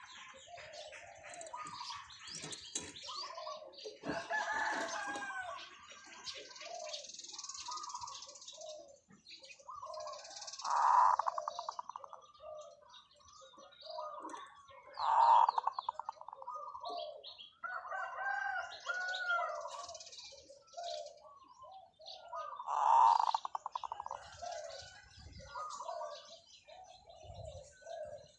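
Zebra dove cooing: soft short coos throughout, broken several seconds apart by loud, rapidly rolling purring coos, with small birds chirping high behind it.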